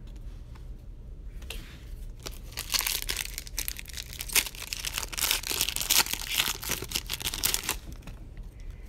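A foil wrapper on a pack of football trading cards being torn open and crinkled. A rapid run of tearing and crinkling noises starts about a second and a half in and lasts about six seconds.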